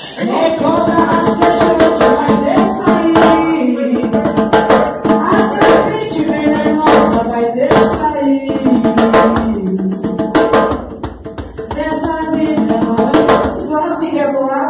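Music with singing over instrumental accompaniment and frequent percussion hits.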